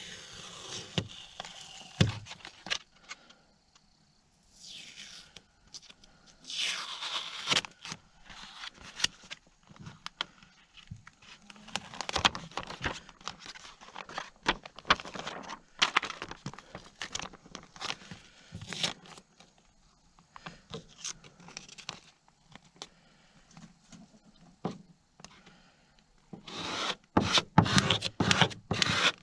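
Hand work on a boat: scattered scrapes, knocks and tearing sounds, then quick rhythmic rubbing strokes, several a second, near the end.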